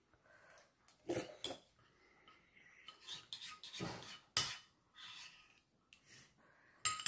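Metal spoon scraping and clinking against a ceramic soup bowl in irregular strokes, with a sharp clink a little past four seconds in and another near the end.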